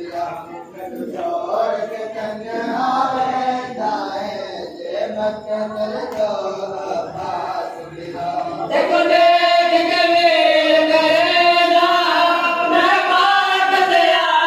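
Men's voices chanting a nauha, a Shia mourning lament, as a group. About nine seconds in, the singing grows much louder and fuller, with long held notes.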